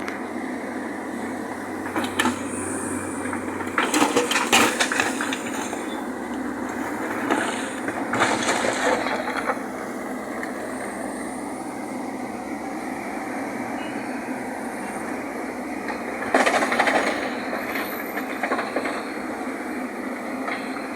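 JCB loader's diesel engine running steadily while it loads a tipper truck, with several loud bursts of metallic clanking and rattling, about two, four, eight and sixteen seconds in, as the bucket works and material drops into the truck.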